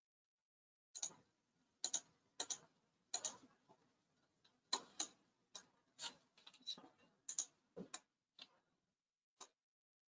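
Computer mouse buttons clicking irregularly, about fifteen short, sharp clicks, many in quick pairs, with dead silence between.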